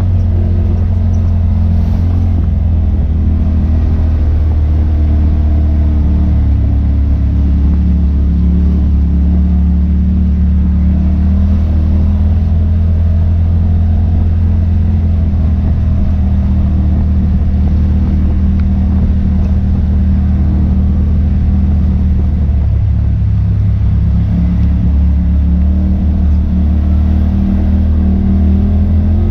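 Side-by-side UTV engine running steadily under light throttle while driving a dirt trail, heard from inside the cab, with a small change in engine pitch about three-quarters of the way through.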